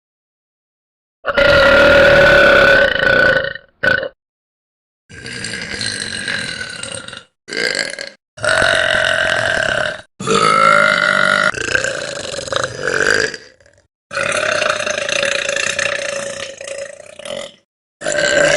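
Girls burping one after another: about seven long, drawn-out burps, most lasting one to three seconds, with a couple of short ones. Each burp cuts off abruptly into silence before the next.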